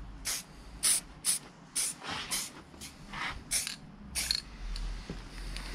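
Aerosol can of Hammerite Direct to Rust metal paint spraying in short hissing bursts, about two a second, dusting on a light, speckled first coat.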